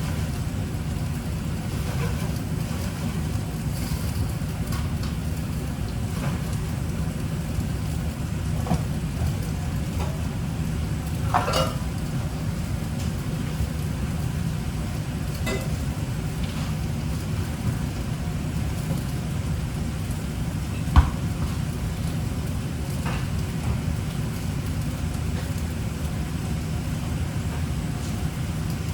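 Steady low rumble of a running motor or fan, with a few light clicks and one sharp knock about two-thirds of the way through.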